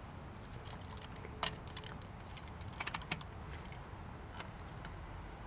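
Light metallic clicks and rattles from a stripped-down GY6 scooter engine and its cam chain being handled and turned by hand: a sharp click about a second and a half in and a quick run of three clicks near the middle.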